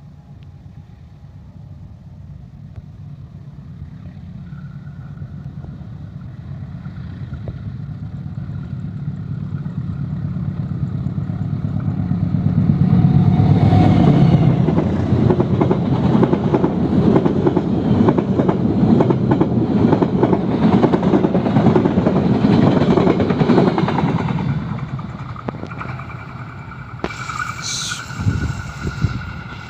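Diesel locomotive-hauled train approaching, its engine rumble growing louder, then the cars passing close by with a dense rattling clatter of wheels on the rails that fades near the end.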